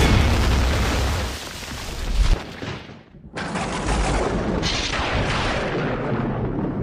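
Sound effects of a cinematic logo intro: a sudden deep boom that rumbles for about two seconds and ends in a sharp hit. After a brief drop, a dense hissing noise starts abruptly and swells again a second later.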